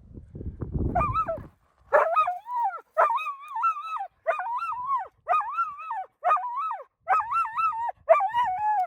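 Elkhound barking in a run of about eight drawn-out, high yelps, roughly one a second, each wavering up and down in pitch; scuffing noise before the calls start.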